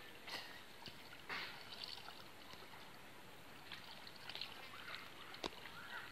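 Faint trickling and lapping of river water, with a few soft splashes and one sharp click about five and a half seconds in.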